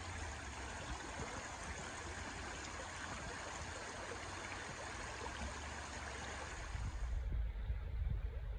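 Shallow stream running over a gravel riffle: a steady rushing and babbling. About seven seconds in it changes to a duller, closer water sound with a low rumble.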